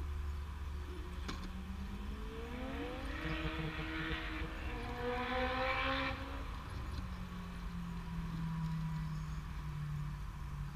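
Electric motor and gear whine of an Axial SCX10 radio-controlled rock crawler as it powers up a steep rock, rising in pitch from about two seconds in to about six seconds in. A rough scrabbling noise rides over it during the climb, and it settles to a lower, steady whine after the crawler tops the rock.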